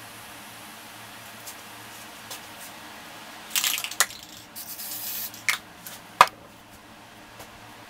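Aerosol spray paint can hissing in two short bursts, followed by a few sharp clicks and knocks from the cans being handled, the loudest click near the end.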